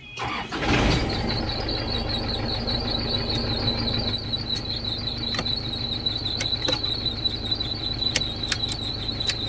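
Isuzu truck diesel engine cranked and firing about half a second to a second in, then idling steadily with a high-pitched squealing whine over the engine's rumble.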